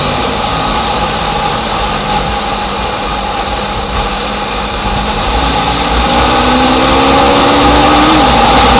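An engine running steadily, growing louder over the last few seconds with a rising note.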